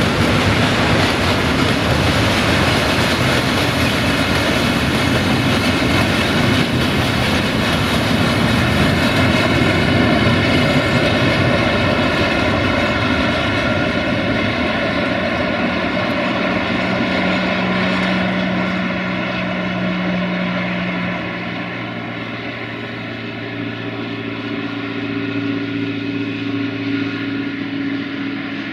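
Freight train of tank wagons rolling past, a steady rumble of wheels on rail that fades as the train draws away, with a steady hum coming up in the second half.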